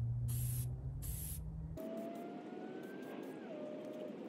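Aerosol can of shellac spraying in short hissing bursts, twice in the first second and a half, over a low steady hum. A little under two seconds in the sound changes abruptly to a steady rushing noise with a slowly falling whine.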